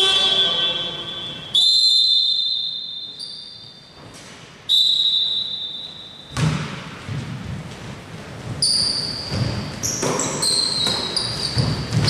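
Three long, shrill referee's whistle blasts ringing through a large hall. After them, about six seconds in, a basketball bounces on the court with short high sneaker squeaks.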